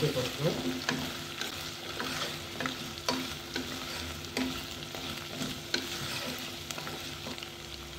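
Drumstick pieces, shallots and green chillies sizzling in hot coconut oil in a nonstick pot while a wooden spatula stirs and tosses them, with frequent light clicks and scrapes of the spatula against the pot.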